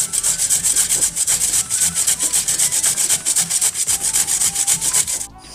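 A potato being grated on a stainless steel box grater: quick, even scraping strokes, several a second, that stop shortly before the end.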